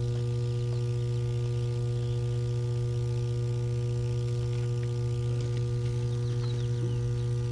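Electrical substation equipment humming steadily at mains frequency, a low drone with a ladder of higher overtones, typical of a power transformer under load.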